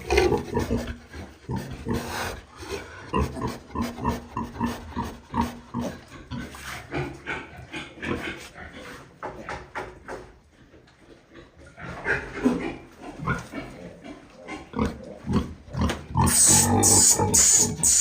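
Pigs grunting in short, irregular bursts, easing off to a lull near the middle before picking up again. Music with a steady beat starts near the end.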